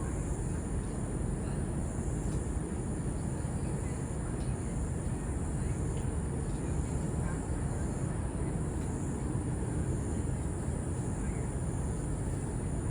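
Steady outdoor background noise: a low rumble with a constant high hiss, and only faint, scattered ticks; no distinct animal call stands out.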